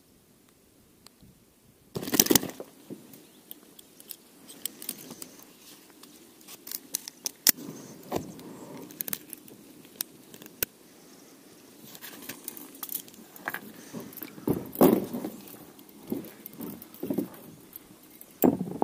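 Metal clip-type fish stringer clinking and rattling as a pike is clipped onto it, with scraping and knocks. It starts with a louder clatter about two seconds in, then irregular clicks, with more loud clatters near the end.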